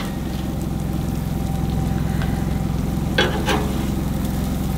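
Cheeseburger patties sizzling on a Blackstone flat-top propane griddle, a steady crackle over a low hum.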